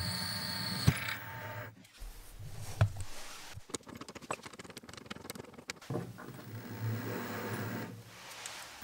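Bench drill press running as it drills a 5 mm pilot hole in 2 mm steel, a steady hum that stops about two seconds in. Sharp metallic clicks and knocks follow as the drill chuck is worked with a chuck key to change the bit, and a low hum is heard again from about six seconds.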